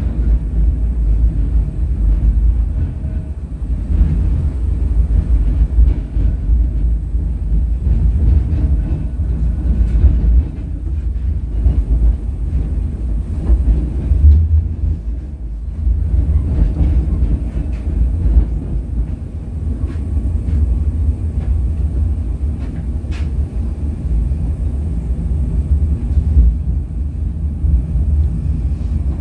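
English Electric Millennium Car tram running along the line, heard from inside the car: a steady, loud low rumble that swells and eases, with a few faint clicks.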